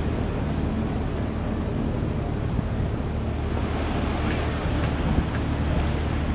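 Steady low drone of a passenger ship's engines, with water rushing along the hull and wind on the microphone.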